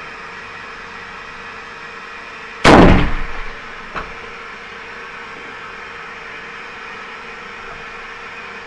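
A Sharps rifle in .45-70 fires a single shot, a sharp report with a short reverberating tail, followed about a second later by a much fainter knock.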